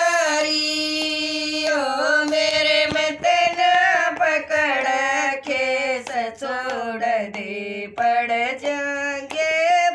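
Two women singing a devotional bhajan together in long held, wavering notes, with hand claps keeping time.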